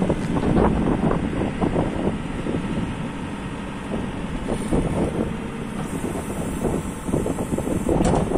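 MST M644 Plus backhoe loader's diesel engine running, with irregular clanks and rattles, busiest in the first couple of seconds and again near the end.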